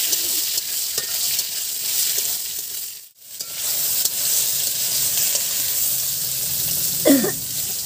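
Brinjal pieces sizzling as they fry in oil in a metal kadai, with a spatula stirring them and clicking against the pan. The sizzle breaks off for a moment about three seconds in, and a brief louder sound comes near the end.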